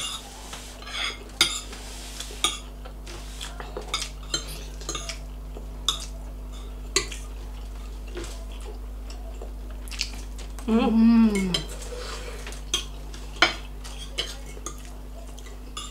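Forks and spoons clinking and scraping on plates as two people eat, scattered clicks throughout over a steady low hum. About eleven seconds in, a short hummed voice sound that falls in pitch.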